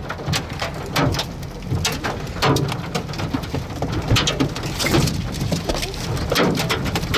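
Rain with scattered hailstones striking nearby as irregular sharp hits, a few of them louder, from a severe thunderstorm's core. Under them runs a low rumble of wind on the microphone.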